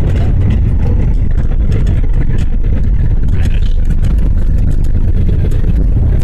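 Jet airliner cabin noise during a ground roll on the runway: a loud, steady low rumble of engines and wheels, with light rattling ticks from the cabin.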